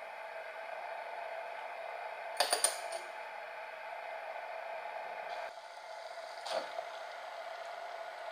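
Metal chopsticks and a metal spoon clinking against a ceramic plate and chopstick rest: a few quick clinks about two and a half seconds in and one more around six and a half seconds, over a steady background hiss.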